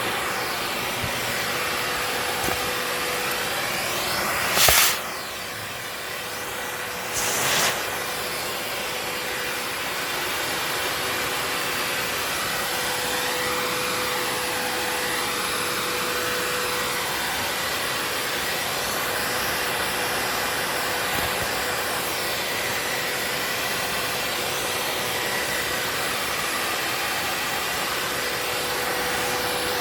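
Vacuum cleaner running steadily, a continuous rushing of suction with a faint steady whine. There are two brief louder surges, about five and seven and a half seconds in.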